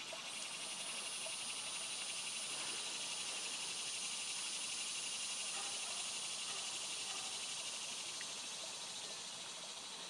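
Insects trilling in a steady summer chorus, with a high thin trill coming in about half a second in over a denser pulsing buzz.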